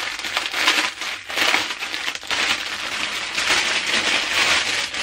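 A fabric swaddle wrap rustling continuously as it is handled and unfolded.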